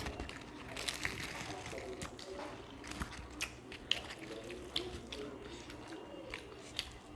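People eating luchi with ghugni and payesh: chewing and wet mouth sounds with many small sharp clicks scattered throughout.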